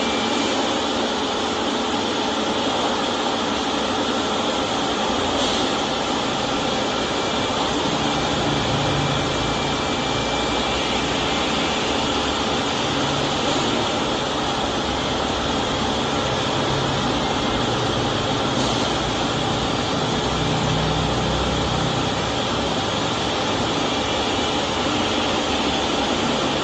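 Steady mechanical hum with a continuous rushing noise and a faint steady whine, with a low rumble that comes and goes from about eight seconds in.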